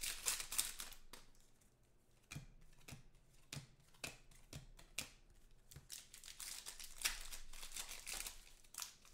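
Foil trading-card pack wrappers crinkling and tearing as packs are ripped open, with a string of short clicks in between as the cards are handled and flicked through.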